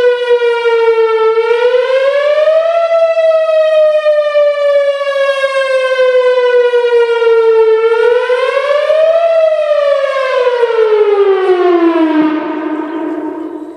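Whelen Vortex R-4 rotating outdoor warning siren sounding a loud wail. Its tone rises quickly and falls slowly twice, then drops steadily in pitch and fades out near the end as the siren winds down.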